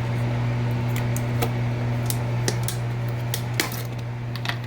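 Steady low hum of a running microwave oven heating sugar and water into caramel, with a scatter of light clicks and clinks from kitchenware being handled.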